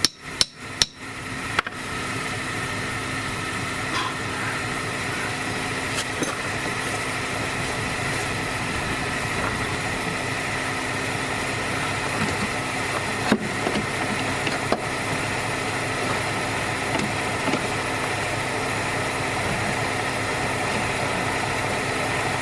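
BMW X5 E70's engine idling steadily, with a few sharp clicks in the first second or two and two sharp knocks about two-thirds of the way through.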